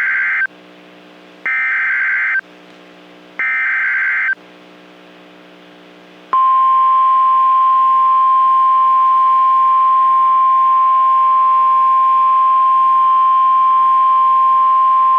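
NOAA Weather Radio alert signal: three short bursts of SAME header data tones about a second apart, then, after a short gap, the steady 1050 Hz warning alarm tone, one loud pitch held for about nine seconds. This is the alarm that precedes a warning broadcast, here a tornado warning.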